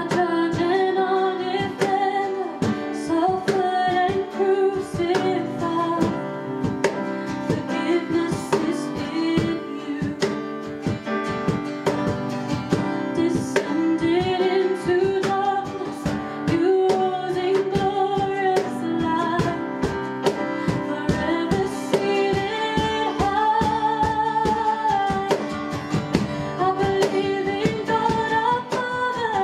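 Worship song: a singer with strummed acoustic guitar accompaniment.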